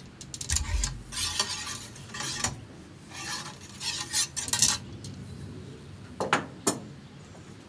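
A muzzle-loading rifle being loaded through a long steel funnel: metal clinking and scraping with stretches of hiss like powder pouring down the funnel, and two sharp clinks near the end.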